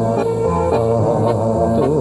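Music: a slow melody of long held notes over a steady low bass line.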